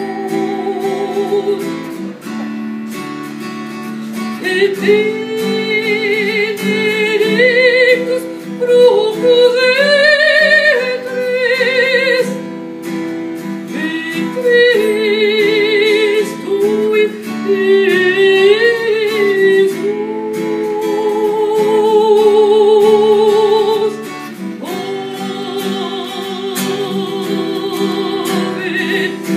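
A woman singing with a wide vibrato, accompanied by a strummed acoustic guitar.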